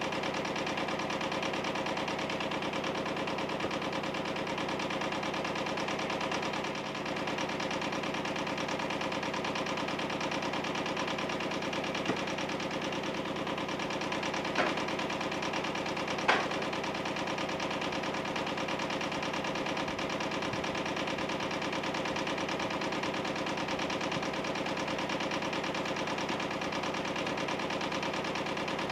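Yanmar 155D diesel tractor engine idling steadily. A few sharp knocks come about halfway through.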